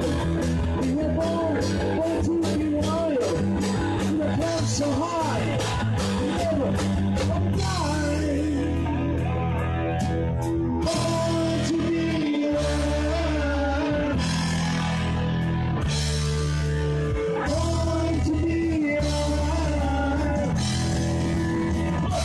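Live rock band playing on amplified electric guitars, bass and a drum kit. Cymbal strikes drive the first third, then they drop away and heavy sustained guitar and bass chords carry on.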